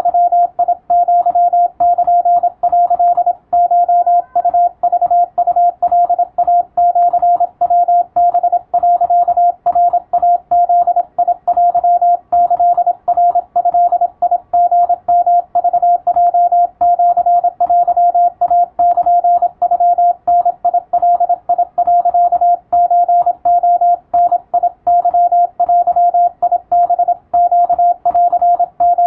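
Japanese wabun Morse code sent as a single beep tone, keyed on and off in quick, unbroken dots and dashes: a radiotelegram for receiving practice.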